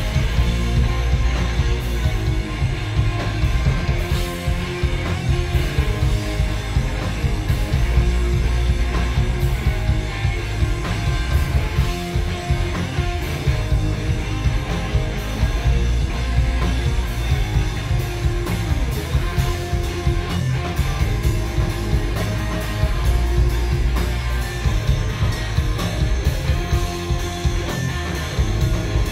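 Live instrumental rock band playing loudly: electric guitars over a heavy low end, with drum and cymbal hits throughout.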